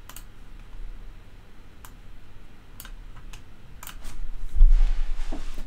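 A few separate clicks of a computer keyboard and mouse, spread out over several seconds, then some louder low thumps from about four seconds in.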